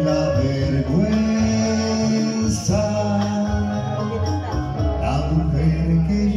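Slow ballad accompaniment with held chords that change every second or two, with some male singing over it.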